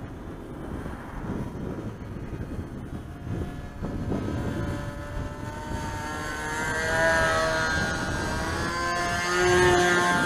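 Two-stroke engine of a model Tiger Moth biplane flying past, its buzz bending in pitch and growing louder as the plane comes closer, loudest about nine to ten seconds in.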